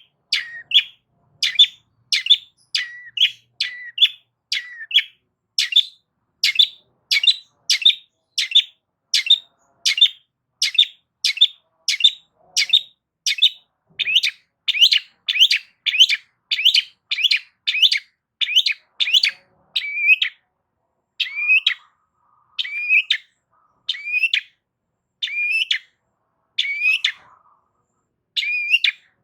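Long-tailed shrike (cendet) calling over and over in short, sharp notes, about one and a half a second, spacing out to roughly one every second and a half in the last third.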